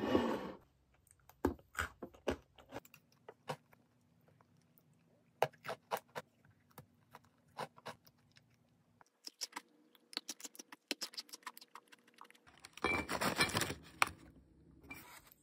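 Crunchy sablé cookies being bitten and chewed, a run of small crisp crunches, mixed with the crinkle of the plastic zip bag they are taken from. A longer dense burst of crackling comes about two-thirds of the way through.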